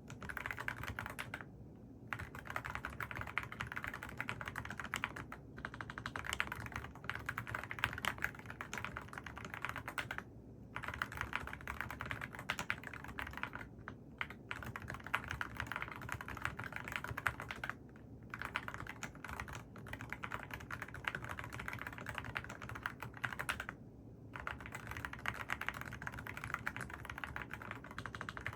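Mechanical keyboard with AKKO Rosewood switches being typed on quickly and continuously, a dense run of key clacks broken by brief pauses of about half a second several times.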